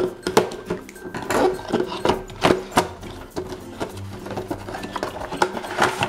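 Cardboard toy box being cut open and unpacked: scissors snipping through the tape, then the box flaps opened and the inner cardboard tray slid out, a run of sharp clicks, snips and scrapes.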